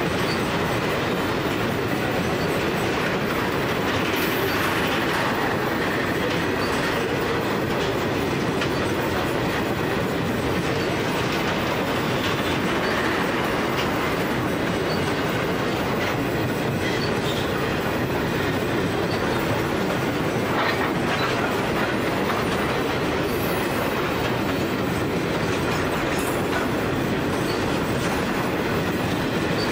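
Empty grain hopper wagons of a freight train rolling steadily past, their steel wheels clattering over the rail joints.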